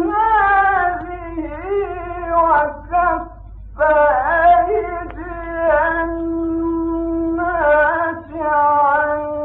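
A male Quran reciter's voice in melodic tajweed recitation, drawing out long held and ornamented notes. There is a short breath pause about three and a half seconds in. A steady low hum runs beneath.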